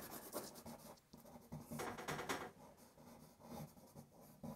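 A pencil scratching faintly on paper in several short strokes, drawing fine lines over dry pastel.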